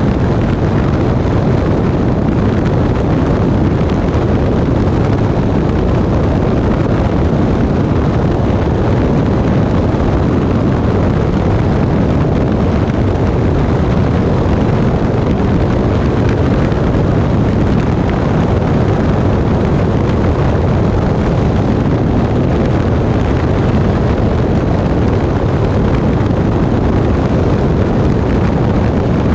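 Steady loud rush of airflow over a camera mounted under a light airplane in flight, mixed with the aircraft's engine running.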